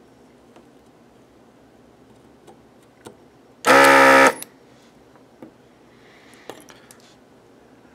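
A short, loud electric buzz, about half a second long, cutting in and out sharply a little before the middle, with a few light clicks and taps around it.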